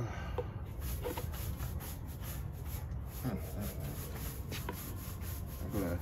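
Flathead screwdriver scraping caked cigarette dust off the plastic blades of a Lasko 3733 box fan, in quick repeated strokes, about four a second.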